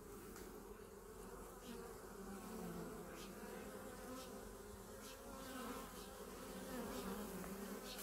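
Honeybees buzzing around their hive: a faint, steady hum in which the pitch of individual bees flying past wavers up and down.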